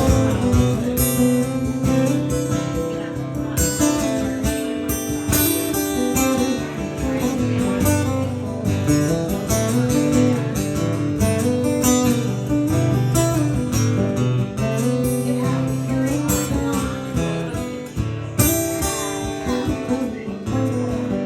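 Acoustic guitar strumming steadily through an instrumental break of a country-folk song, with no singing.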